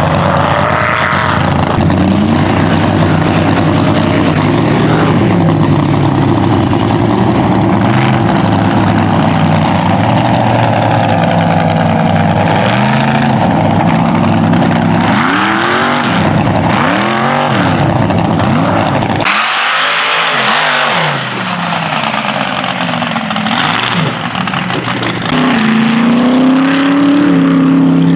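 Mega mud truck engines running and revving as the trucks drive, the pitch repeatedly swelling and falling with the throttle. The sound changes abruptly about two-thirds of the way through, and near the end an engine's pitch climbs and holds high.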